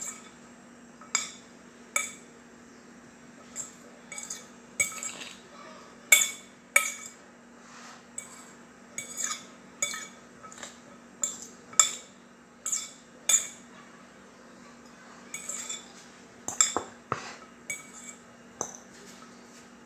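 Metal fork clinking against a glass mixing bowl while tossing couscous salad: irregular sharp clinks, roughly one a second, over a faint steady low hum.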